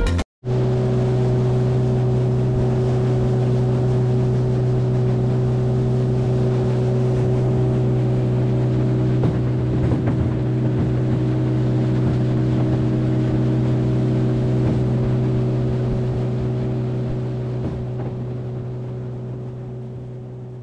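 Outboard motor of a small aluminium boat running at a steady cruising speed, a constant engine hum over the rush of water and wind. It cuts in just after the start and fades away near the end.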